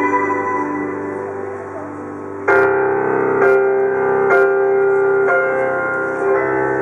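Piano playing slow chords live. Sustained notes die away, then a loud chord is struck about two and a half seconds in, followed by several more chords about a second apart, each left ringing.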